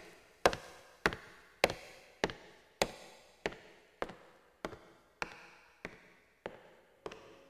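Evenly spaced sharp knocks, about one every 0.6 seconds, each ringing briefly and growing gradually fainter.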